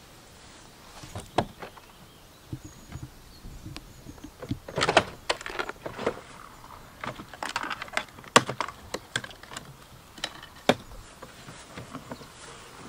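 Plastic clicks and knocks as a caravan's toilet cassette is unlatched and slid out of its side hatch and its pull-out handle is extended. The knocks are irregular and busiest about five seconds in.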